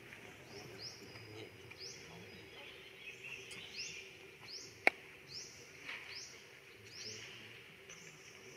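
A bird chirping over and over: short, high, upward-sweeping chirps about one to two per second. A single sharp click about five seconds in stands out as the loudest moment.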